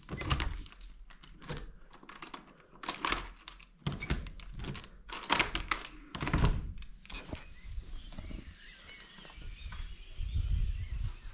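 Clicks and knocks of a uPVC balcony door's handle and frame being worked, with a louder thunk about six and a half seconds in as the door swings open. After that a steady high-pitched chorus of insects from outside holds on.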